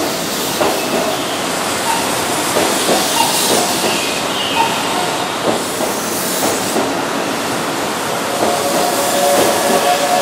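Keihan 9000-series VVVF electric train pulling out of a station platform, its wheels clicking and knocking over the rails as it gathers speed. A steady inverter-motor whine comes in about eight seconds in and grows louder.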